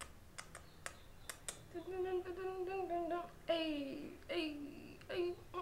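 A woman humming a short wordless tune: long held notes, then a falling glide and a couple of shorter notes. A few sharp clicks come before it in the first second and a half.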